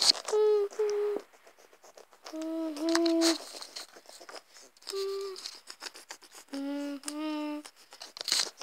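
A person humming short, level-pitched notes, mostly in pairs like 'mm-hm', four times, with small clicks and rustles between them.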